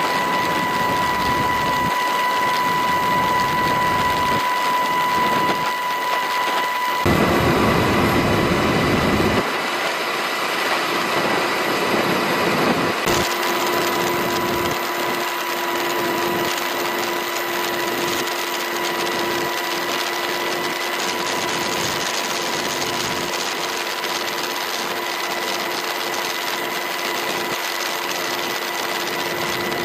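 Military helicopter running, with a fast, steady rotor beat under a constant high turbine and gearbox whine. The sound changes abruptly a few times.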